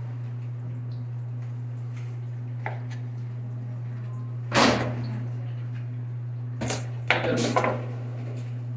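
Knife cutting a mango on a plastic cutting board: one loud knock about halfway through, then a quick run of knocks and scrapes near the end, over a steady low hum.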